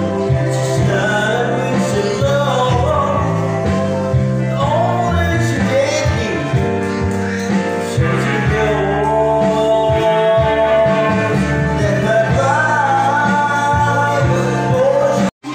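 A man singing through a handheld microphone over backing music with a bass line and guitar, the sound breaking off abruptly near the end.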